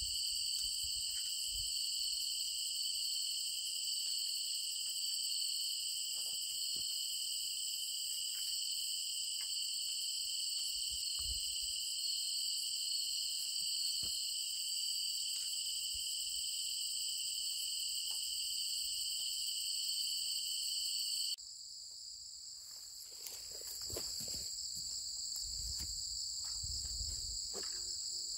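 Steady chorus of crickets and other insects, several shrill pitches held together. A little over two-thirds of the way in it changes abruptly as the lowest pitch drops out, and a few soft knocks follow.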